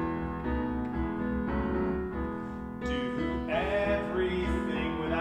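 Piano playing a slow accompaniment for a sung Bible verse, with voices beginning to sing about three and a half seconds in.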